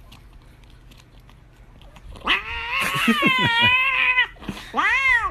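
Cat yowling in protest as its treat stick is pulled away. One long, wavering meow starts about two seconds in, and a shorter meow comes near the end.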